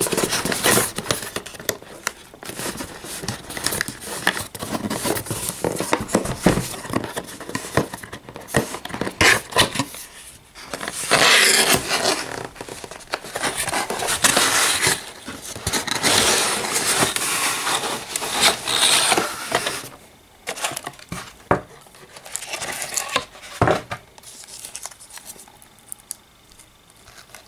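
Clear plastic bag crinkling and rustling around a boxed hard drive as it is handled and unpacked, with cardboard packaging scraping and light knocks. The rustling comes in irregular spells, loudest about halfway through, and grows quieter near the end.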